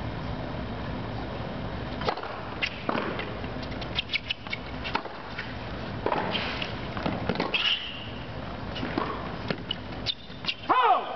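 Tennis rally on a hard court: a series of sharp pops of the ball off racket strings and bounces off the court, with a brief squeal near the end that is the loudest moment.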